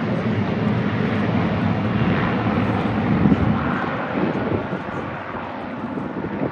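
Aircraft flying past, its engine noise building to a peak about three seconds in and then fading away.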